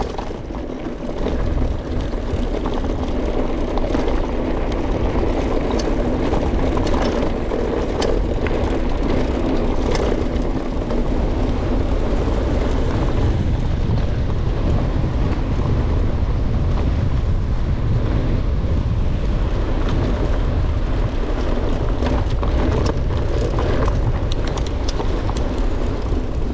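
Mountain bike descending fast: steady wind rumble on the helmet or bike camera's microphone mixed with tyres running over the trail, with scattered clicks and rattles from the bike over bumps.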